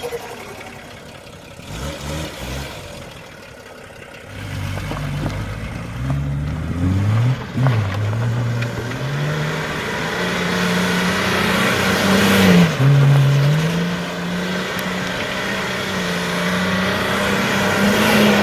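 Volvo 940's 2.4-litre inline-six D24TIC turbodiesel, running quietly at first with a few falling revs, then revving up from about four seconds in and held at high revs for a burnout, with a brief dip in revs about two-thirds of the way through.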